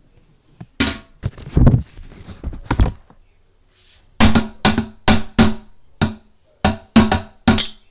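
Drumsticks drumming on a toilet: a few scattered knocks in the first three seconds, then a steady run of sharp hits, about three a second, from about four seconds in.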